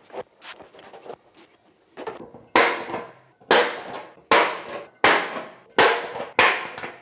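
Centre punch striking the hole marks on a Mazda BT-50's thin sheet-metal front fender: a few faint taps, then six sharp metallic strikes about a second apart, each ringing briefly through the panel.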